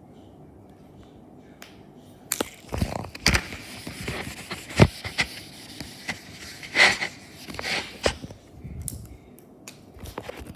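Close handling noise: a run of sharp clicks, knocks and short scraping rustles, starting about two seconds in and dying away near the end, with the loudest knock about five seconds in.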